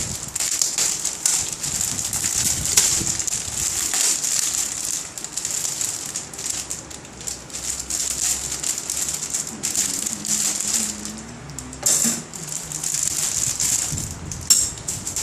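Plastic bags around model-kit parts crinkling and rustling as they are handled, with scattered clicks and knocks of the parts.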